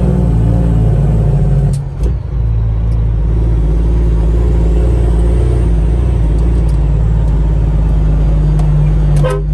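Heavy truck's diesel engine running steadily with a deep, even hum, dipping briefly about two seconds in.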